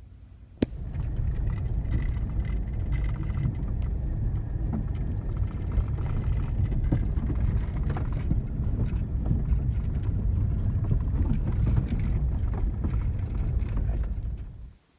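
Vehicle driving: a steady low rumble with frequent small rattles and knocks. It starts suddenly with a click and cuts off abruptly just before the end.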